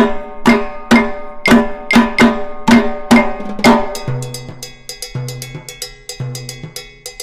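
Music with a steady drum and percussion beat: strong pitched hits about twice a second, turning softer with a repeating bass note about four seconds in.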